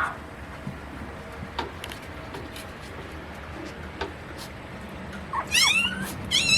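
Chihuahua puppy whining: high, falling squeals twice near the end, with a few faint clicks before them.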